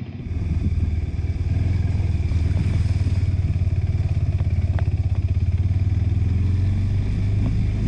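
Motorcycle engine running steadily under load, a deep fast pulse that swells about a third of a second in and then holds. A few faint clicks come near the middle.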